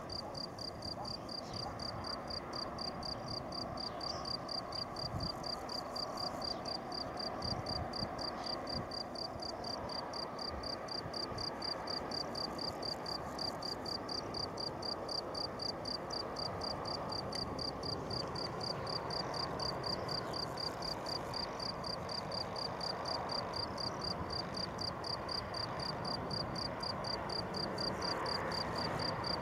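Crickets chirping in a steady, fast, high-pitched pulse, over the low rumble of a Boeing 737-800's CFM56 jet engines on final approach, growing louder toward the end as the airliner nears.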